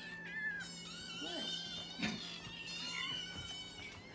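A litter of hungry foster kittens meowing for food, several high-pitched cries overlapping without a break. A single sharp knock comes about two seconds in.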